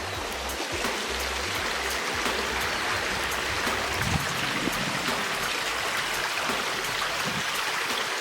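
Stream water rushing steadily, an even splashing hiss.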